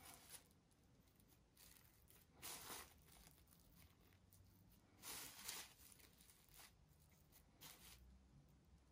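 Near silence with a few brief, faint rustles of hands working sesame-coated kömbe cookie dough, shaping it and pressing it into a mould; the loudest rustles come about two and a half and five seconds in.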